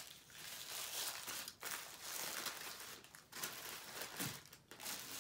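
A Burger King burger's paper wrapper being unfolded and crinkled by hand, in uneven rustling bursts.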